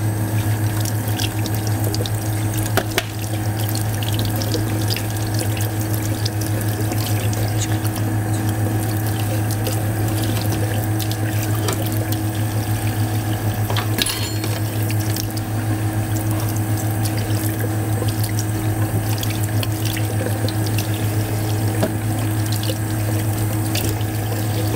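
Tap water running into a stainless steel sink while an espresso machine's metal shower screen is scrubbed under the stream, with a couple of sharp metal clinks. A steady low hum runs underneath.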